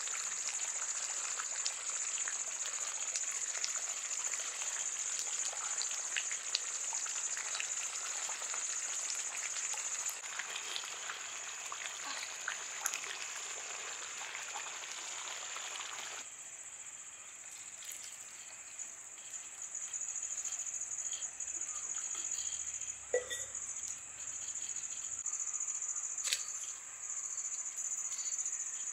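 Chicken gravy bubbling and sizzling in an iron kadai over a wood fire, a dense crackle for about the first half that then drops away, under a steady high drone of crickets. Near the end the fire gives a couple of sharp pops.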